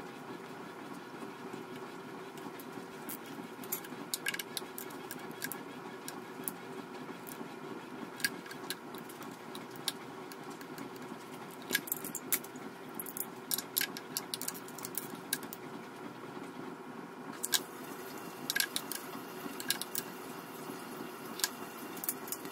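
Light, irregular metallic clicks and clinks as small metal engine parts are handled and fitted at the front camshaft end of an engine, over a steady low hum.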